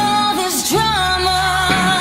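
Music with singing: long held sung notes that waver slightly, over sustained bass notes.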